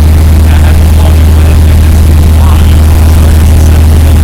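Cessna 172M's four-cylinder Lycoming piston engine and propeller giving a steady, deep drone, heard from inside the cabin in flight. The recording is so loud that it is overdriven.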